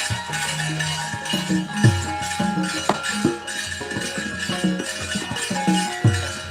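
Javanese gamelan music accompanying a wayang kulit performance: held metallophone and gong tones with drum strokes and a few sharp knocks.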